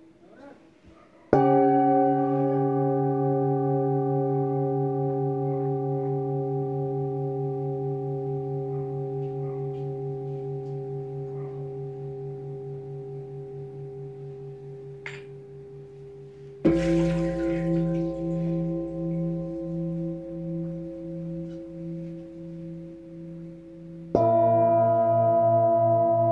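Antique Tibetan singing bowls struck with a felt mallet three times: about a second in, a little past the middle, and near the end. Each strike rings out in several tones at once that fade slowly with a pulsing wobble.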